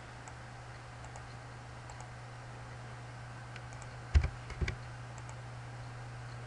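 Computer keyboard keystrokes and mouse clicks: a few faint clicks in the first two seconds, then a couple of louder, thuddy keystrokes a little after four seconds in, over a steady low electrical hum.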